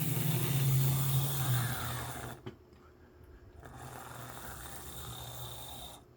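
Small electric motor of an HO scale brass model locomotive humming steadily, then cutting off with a click about two seconds in. A faint hiss follows.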